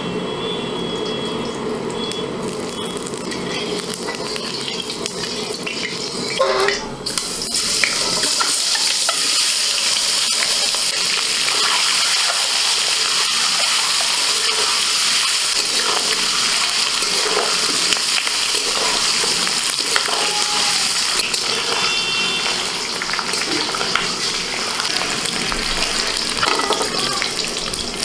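Boiled eggs frying in hot mustard oil in a steel wok. A short clatter comes about seven seconds in, then a steady loud sizzle with scrapes of a spatula stirring.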